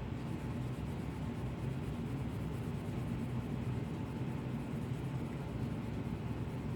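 Steady mechanical hum with an even hiss over it, as from a small motor running continuously.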